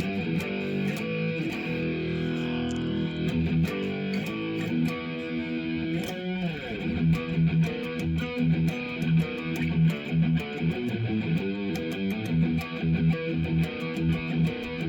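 2005 Epiphone Les Paul electric guitar played through a Marshall Code 25 amp: held, ringing chords, a falling pitch slide about six seconds in, then quicker rhythmic picked chords.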